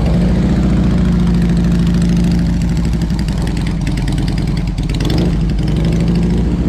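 Harley-Davidson V-twin motorcycle engines idling loud and steady, with the quick, uneven firing pulse of a big-twin.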